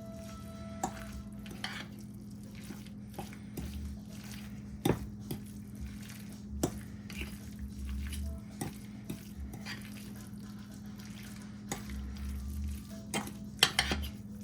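A utensil clinking and knocking against a dish, with scattered sharp taps, the loudest about five seconds in and a quick cluster near the end, over a steady low hum.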